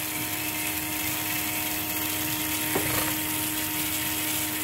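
Surgical implant handpiece drill running steadily, a small motor's even whine over a hiss.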